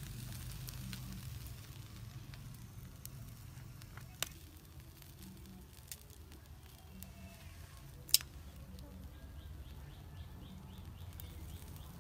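Chicken feet grilling over a charcoal fire with faint crackling. A few sharp clicks of metal tongs against the grill grate break in, the loudest about eight seconds in.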